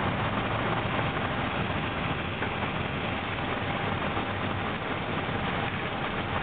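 Airbus A321 airliner heard from the cockpit during its landing rollout after touchdown: a steady, even rumble of the aircraft rolling down the runway, with a faint steady whine.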